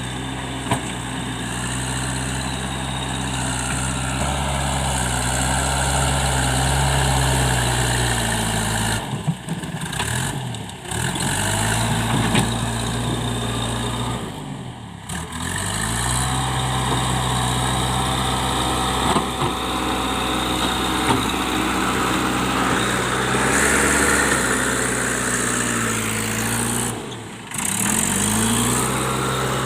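JCB 3DX backhoe loader's diesel engine running steadily under working load, its pitch dipping and picking up again a few times, with a few short metallic knocks.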